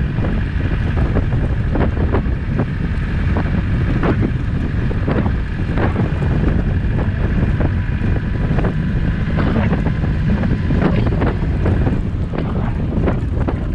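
Land Rover Discovery 200 Tdi driving off-road: a steady low engine and tyre noise, wind buffeting the microphone, and frequent sharp knocks and rattles from the vehicle over rough ground.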